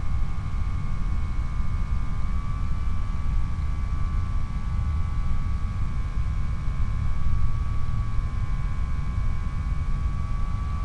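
Skyhunter FPV plane's electric motor running at steady cruise power, heard from on board as a steady whine of several tones that shifts slightly in pitch about two seconds in, under a heavy low rumble of wind across the airframe.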